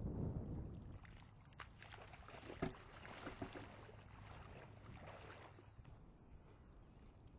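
Feet wading through shallow water, sloshing and splashing with a run of small uneven splashes from about a second in that fades out near the end. Wind rumbles on the microphone at the start.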